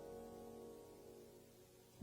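Background music, its held notes dying away to near silence.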